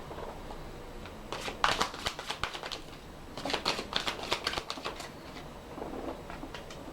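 A deck of message cards being shuffled by hand: two bursts of quick, crisp card flicks, the first about a second in and the second around the middle.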